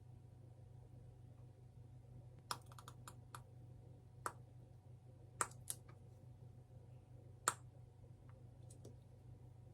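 A few faint, scattered sharp clicks and taps, seven or so, irregularly spaced, the last one the loudest, over a low steady hum.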